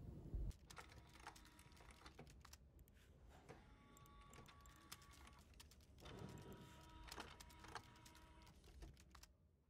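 Very faint scattered clicking over near silence.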